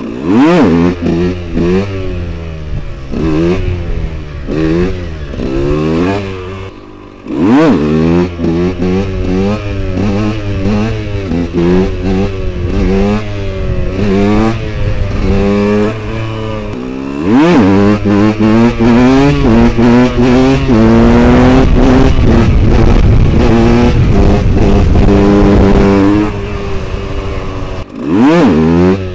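KTM 125 EXC single-cylinder two-stroke with an FMF Powercore 2 silencer, ridden hard: the engine revs up and drops again and again as it is shifted through the gears and let off. Several times it falls to a low pitch and then shoots back up, and for a few seconds near the middle it is held at high revs.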